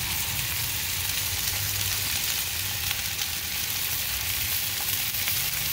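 Sauced chicken pieces and ribs sizzling on foil over the grill's gas burners: a steady hiss.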